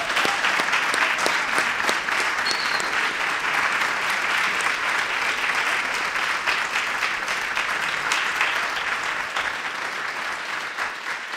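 Audience applauding, dense clapping from a roomful of people that slowly dies down toward the end.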